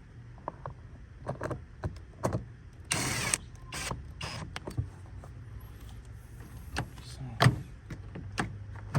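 Rear door trim panel being screwed back onto the car door: scattered clicks and knocks of handling, with a short loud burst of noise about three seconds in and two smaller ones just after, over a steady low hum.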